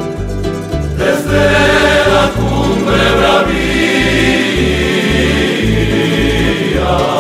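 Background music: a song with a bass line in short, even notes, joined about a second in by a choir singing.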